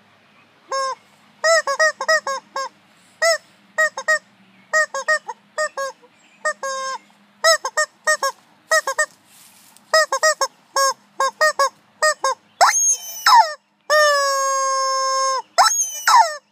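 Yellow rubber chicken toy squeezed over and over: rapid short squawks, several a second, each bending up and down in pitch. About twelve and a half seconds in come longer squeals, then one long drawn-out scream held steady for about a second and a half.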